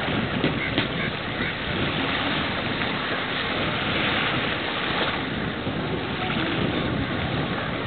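Steady wind and water noise at the shore, with wind buffeting the microphone.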